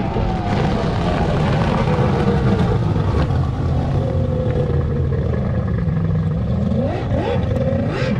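Outboard motor of a small power boat running at speed across open water, its pitch sliding down early on, then climbing sharply near the end as it revs up again.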